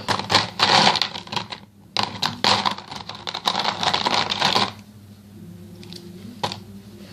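Small paint bottles clattering and clicking against each other as someone rummages through them: two runs of rapid clicking, then quieter, with a single click near the end.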